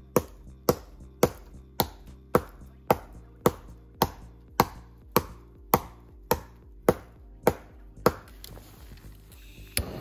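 Steady, evenly paced chopping strokes of a tool into wood, about one every half second: fifteen sharp strikes, then a weaker one near the end.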